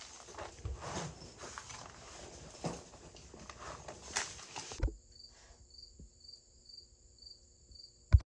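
Rustling with scattered clicks and knocks of things being handled for about five seconds. Then an insect chirps evenly about twice a second over a faint steady hum, cut off by a single sharp knock near the end.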